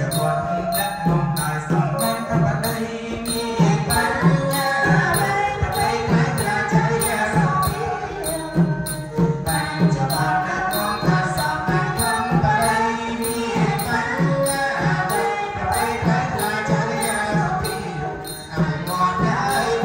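Cambodian traditional ensemble music: hand drums keep a steady beat about twice a second while a voice sings a wavering melody over them.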